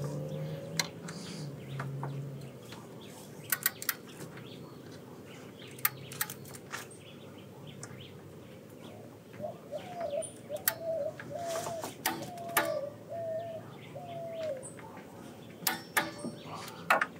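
Scattered metallic clicks from a socket wrench as a bolt on the engine's accessory bracket is run down and torqued, a few at a time. From about nine seconds in, a bird gives a short chirp about twice a second for some five seconds.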